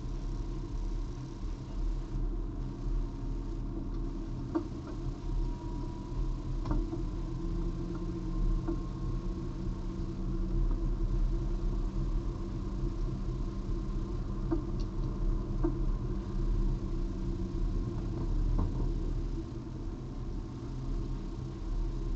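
Car engine running at low revs while the car crawls along slowly, heard from inside the cabin, with a few scattered light clicks and knocks.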